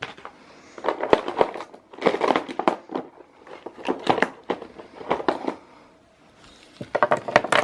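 Swiss Army pocket knives being handled, clicking and rustling in several short bursts as they are picked up and moved.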